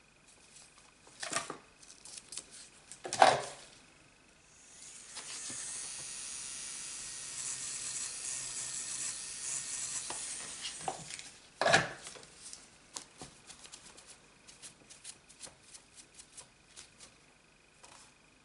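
Steel cuticle nippers snipping at a stubborn corner of cuticle: a few sharp clicks, the loudest about three seconds in and another near twelve seconds, with a steady hiss for about six seconds between them and small soft ticks afterwards.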